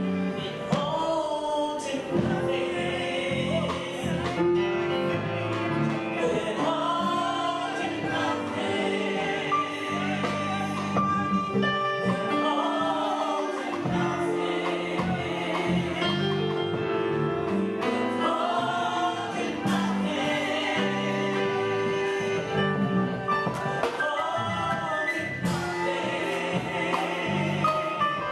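Gospel music with singing: sung voices over sustained instrumental accompaniment.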